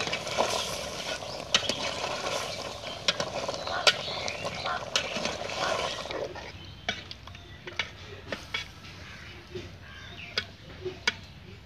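Metal spatula stirring chicken curry in a metal pot, with irregular clicks and knocks of the spatula against the pot. The sound is quieter after about six seconds.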